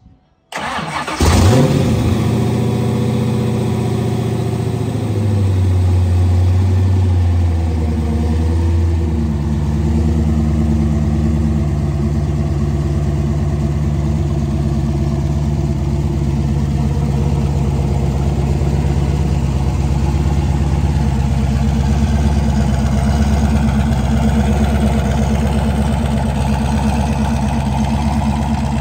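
Turbocharged Ford small-block V8 starting for the first time on its new custom turbo kit: a brief crank, it catches about a second in and runs at a raised idle, then settles to a steady idle about nine seconds in.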